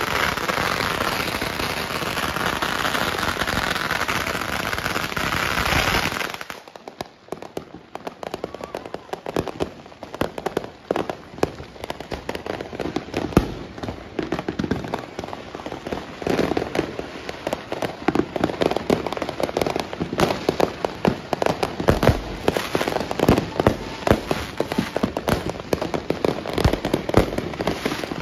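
Firecrackers crackling in a dense, continuous rattle close by, which cuts off suddenly about six seconds in. After that, firework pops and bangs go off one after another at irregular intervals, quieter and farther away, with one sharp loud bang about halfway through.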